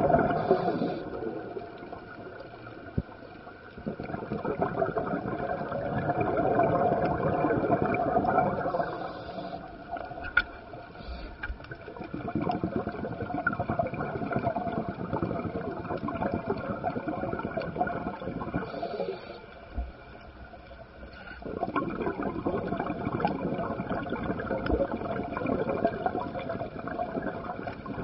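Scuba diver's exhaled bubbles rushing from the regulator, heard underwater, in long surges several seconds apart with quieter gaps between breaths.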